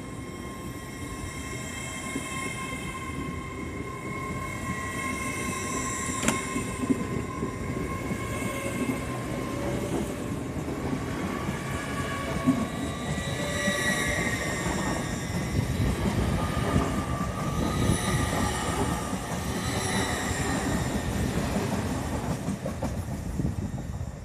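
LNER Class 801 Azuma electric train pulling away: wheels rumbling on the rails, with a whine from its traction motors that rises in pitch as it gathers speed, and a single sharp click about six seconds in.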